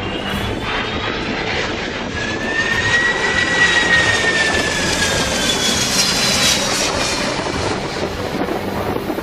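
Airbus A330 jet airliner passing low overhead on landing approach: a steady engine roar with a high fan whine that rises and then falls as it goes over, loudest about three to four seconds in.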